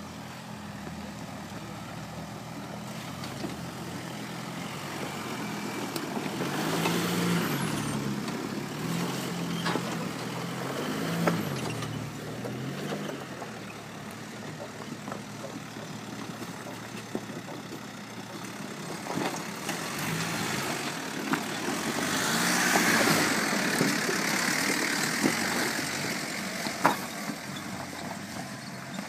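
Jeep Wrangler engines running at low speed as the 4x4s crawl over a rocky trail, the revs swelling and falling away twice. A few sharp knocks cut through.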